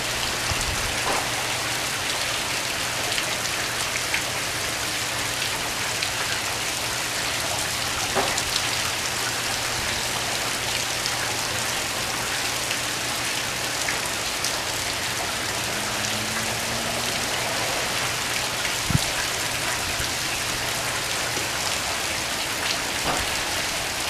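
Steady rain falling, an even hiss, with a low steady hum underneath that stops a few seconds before the end.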